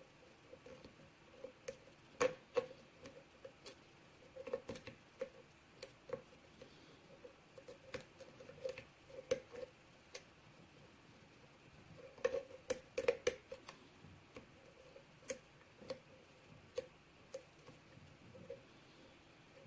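Lock pick working the pins of a seven-pin lock under tension: irregular small metallic clicks and ticks as the pins are lifted and set, bunched in quick clusters about two seconds in, around four to five seconds, and around twelve to thirteen seconds.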